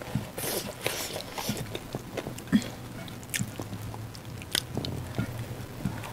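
Close-up eating sounds: chewing and lip smacks with scattered small wet clicks, as fingers squeeze and mix rice with dal on plates.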